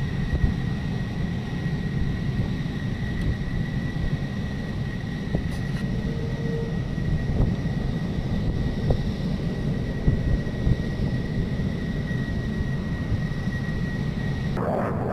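F-16 fighter jet's engine running steadily: a deep rumble with a high, even whine, the whine cutting off just before the end.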